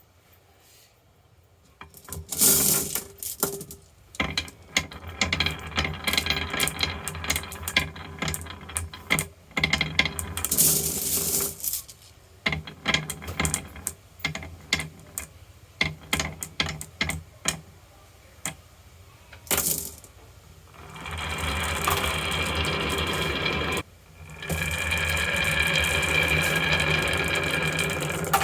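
Marbles rolling and clattering down a wooden marble run: many quick, irregular clicks and clacks. Near the end a steady whirring takes over, with a brief break.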